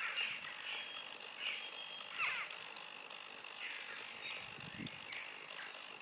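Birds chirping and calling: a steady string of short chirps and quick falling calls, the loudest a little over two seconds in.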